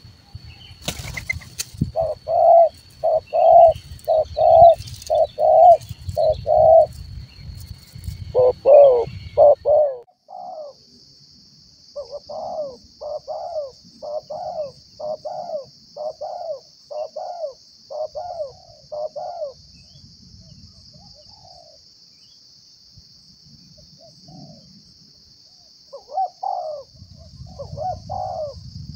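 Spotted doves cooing: short coo notes repeated about twice a second in runs of several seconds, with a long pause from about twenty seconds in to about twenty-six. A brief crackling rustle about a second in, and from about ten seconds in a steady high insect drone underneath.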